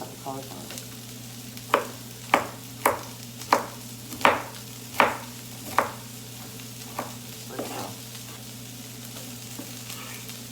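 Vegetables sizzling in oil in a frying pan as they are stirred, with about seven sharp knocks of the utensil against the pan between about two and six seconds in.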